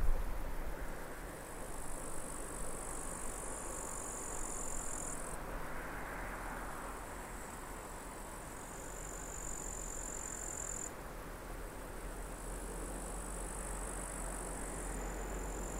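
Distant M62 diesel locomotive's two-stroke V12 engine running with a low, steady rumble as it approaches hauling a freight train. Over it, insects chirr at a high pitch in long spells that start and stop every few seconds.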